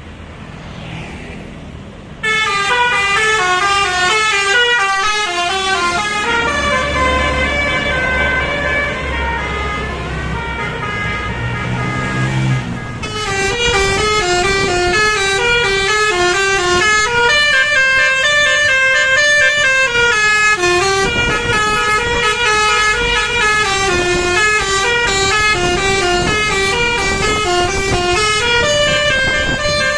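Bus 'telolet basuri' multi-tone horn playing a fast tune of stepping notes. It starts abruptly about two seconds in over traffic noise and keeps playing. A bus engine revs up under it around the middle.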